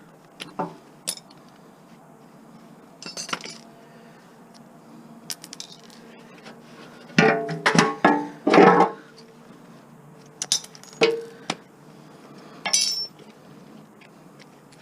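Scattered metal clinks and clanks, some ringing briefly, from hand tools, screws and loose metal parts being handled while a gas lawn mower is taken apart. The loudest cluster of clanks comes about halfway through.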